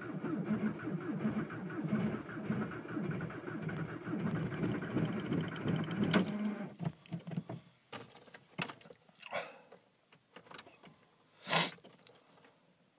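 The 1.9 L TDI diesel of a 2004 Volkswagen Jetta, turning over rough and uneven at −27 °C with a faint whine, cuts out about six seconds in. Several clicks and key-ring rattles follow from the ignition, the loudest near the end.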